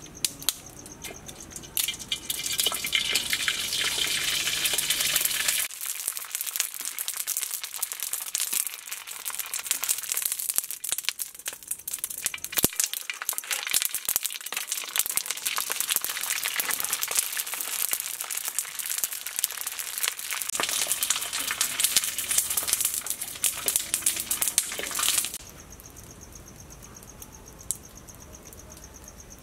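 Pale dried strips frying in hot oil in a wok: a steady, dense sizzling and crackling that cuts off sharply about 25 seconds in.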